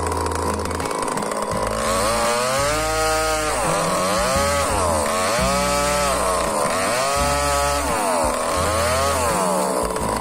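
Petrol two-stroke chainsaw cutting into a thick log, its engine pitch rising and falling about four times as it revs and bogs in the cut.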